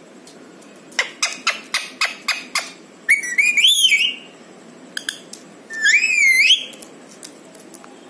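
A green parakeet whistling twice, each a short wavering whistle that rises in pitch, after a quick run of about seven sharp clicks.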